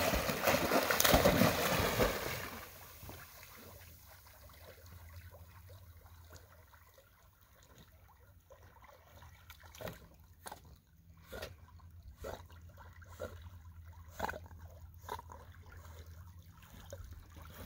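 A dog bounding through shallow water with loud splashing for the first two seconds or so, then swimming, with quieter small splashes and laps of water.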